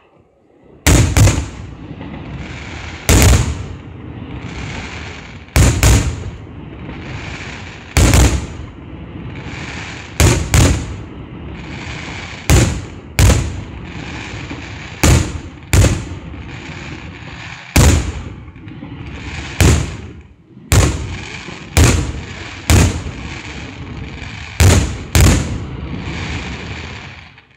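Aerial fireworks shells bursting with sharp bangs, about seventeen of them, one every one to two seconds and sometimes in quick pairs. A continuous crackling hiss of burning stars fills the gaps between the bangs. The sound stops abruptly near the end.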